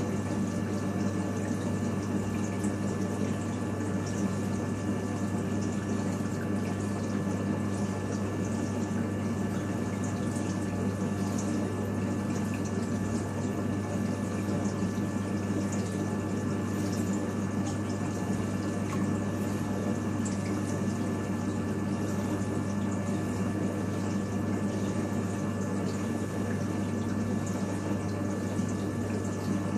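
Steady low hum of a reef aquarium's pumps with the rush and trickle of circulating water, unchanging throughout.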